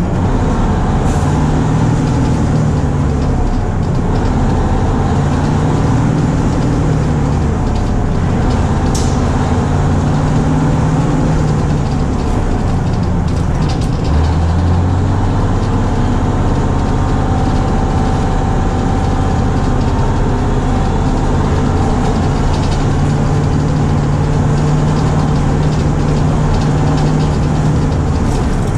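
Engine of a 1971 Crown Super Coach tandem-axle school bus running under way, heard from inside the bus cabin as a steady loud drone; the engine note changes several times, most clearly about halfway through. A short sharp click is heard about nine seconds in.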